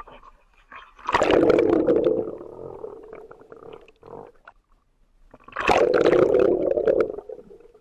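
Muffled underwater bubbling and rushing water heard through a submerged camera, with air bubbles rising around swimmers. Two loud surges, about a second in and again past five seconds, each fading over a second or two.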